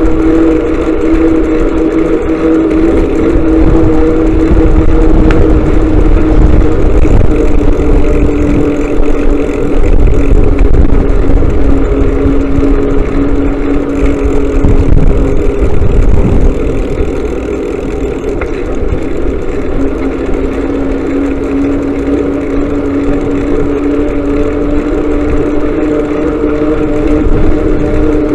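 Motorcycle engine running at a steady road speed, with a low rumble of wind and road underneath. The engine note holds steady and eases a little in loudness partway through.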